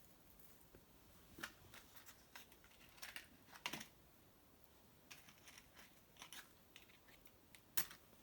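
Small fire of dried maple brushwood crackling in an irori hearth: scattered sharp snaps and pops over near silence, with a louder snap near the end.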